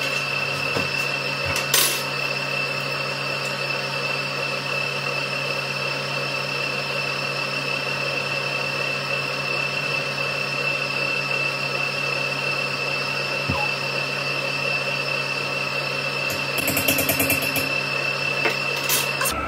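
Electric stand mixer running steadily with a constant motor whine, beating cake batter for a few more minutes of mixing. A few light clicks and rattles come in near the end.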